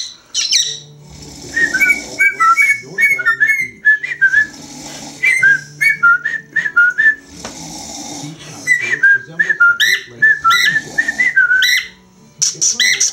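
Lutino cockatiel whistling a long string of short, quick notes that hop up and down in pitch, in two runs with a short break between them.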